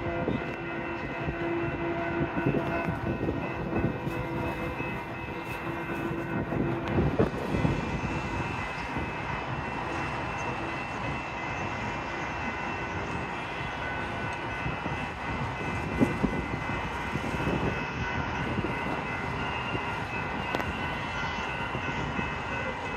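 A steady engine drone with several held tones over a background hiss, with a few faint knocks along the way.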